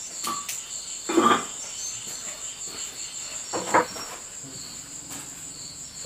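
Insects chirring steadily in a continuous high-pitched trill. Two short voice-like sounds stand out, about a second in and again near four seconds.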